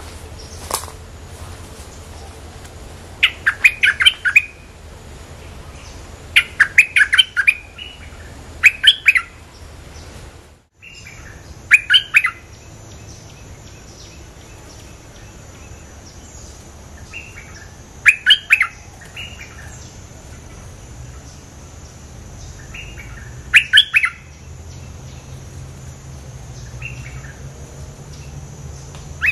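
Bulbul singing short phrases of quick chirping notes, a few seconds apart, with fainter phrases between them.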